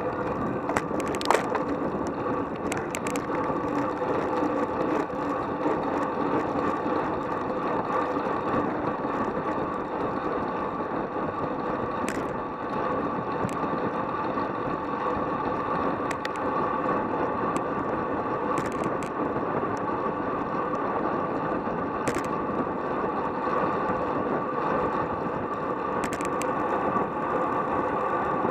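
Road bicycle riding fast: steady wind rush over the microphone and tyre noise on the asphalt, with a faint steady hum and a few sharp clicks and rattles from the bike.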